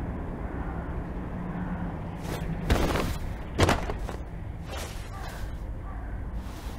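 A low steady hum of background ambience with a handful of short, soft knocks spread through it, the two loudest about three and three and a half seconds in.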